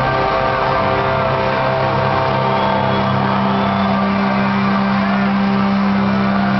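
Live rock band playing loud, with the guitars and bass holding long sustained chords.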